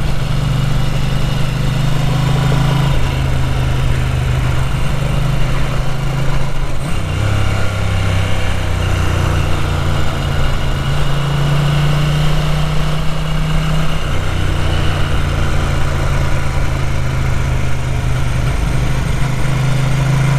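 Ducati 900 SS V-twin engine running under way, its pitch stepping up and down several times as the revs change, with wind rush on the microphone. The carburetted engine has a carburettor fault that makes it run unevenly.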